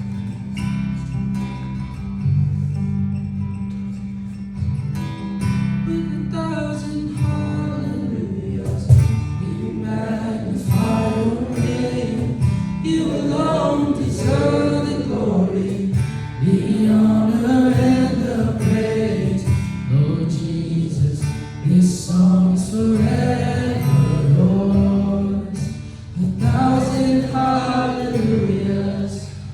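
A group singing a worship chorus together with a strummed acoustic guitar. The guitar plays alone at first, and the voices come in about six seconds in.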